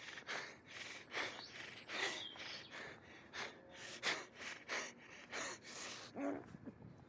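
Heavy breathing: a steady run of short, breathy puffs, about two or three a second.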